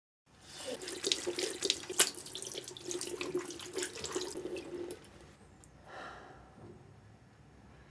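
Water running from a tap into a sink, splashing steadily, then turned off about five seconds in.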